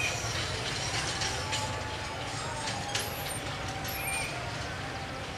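Executive passenger train's carriages rolling away over the rails: a steady low rumble with scattered sharp clicks, slowly fading.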